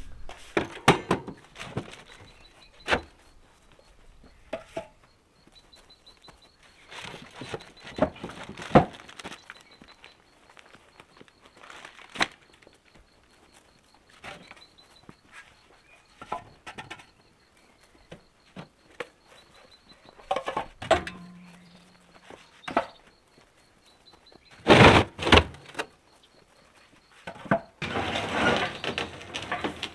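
Intermittent knocks, thuds and scraping of hands-on building work: a broom sweeping brick rubble, hollow clay bricks being set down, and a cement mixer being shifted on a trailer bed. The knocks come at irregular intervals, with several louder thuds among them.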